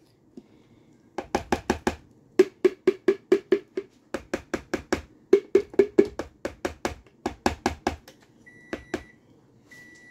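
Plastic spatula knocking rapidly against a plastic container to empty it into a bowl, in several runs of about four or five hollow knocks a second. Near the end a microwave oven beeps twice, signalling that its cooking time is up.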